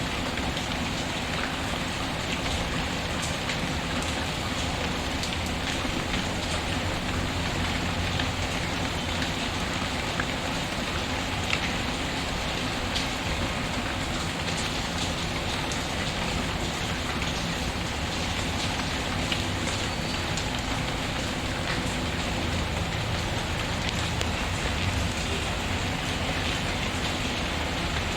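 Steady rain with a wood fire crackling, scattered sharp pops standing out now and then over the even hiss of the rain.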